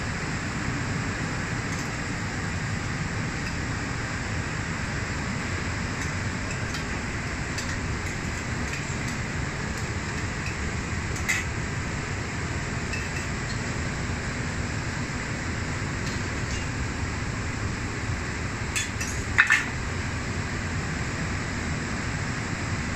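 Steady kitchen background noise with utensils clinking against a metal saucepan and a china plate while a dish is plated: a single clink about 11 seconds in and a quick cluster of louder clinks around 19 seconds in.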